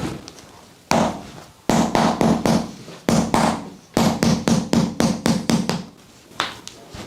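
Quick runs of sharp percussive strikes on a patient's body during a chiropractic treatment, about five or six blows a second in several bursts, with a single strike near the end.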